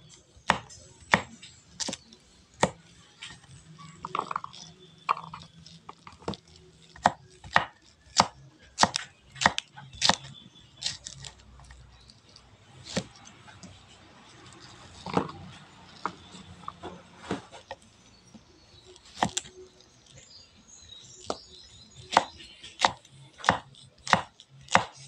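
Kitchen knife slicing okra pods on a wooden chopping board, the blade knocking the board with each cut. The knocks are sharp and come at an uneven pace, roughly one or two a second.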